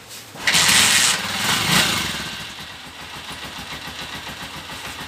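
Honda TMX 125 Alpha's single-cylinder four-stroke engine starting, with a sudden loud burst about half a second in, then settling into a steady idle.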